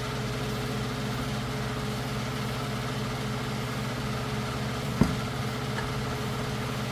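Steady mechanical hum of a motor running in the background, with a single sharp knock about five seconds in.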